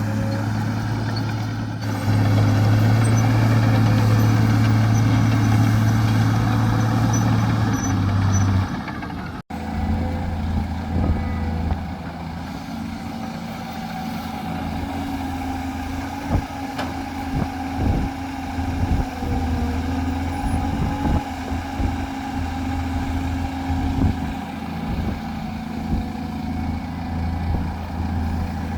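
Heavy diesel engine of earthmoving machinery running steadily, louder for the first eight seconds or so. The sound breaks off abruptly about nine and a half seconds in. After that the engine runs on, with scattered clanks and knocks.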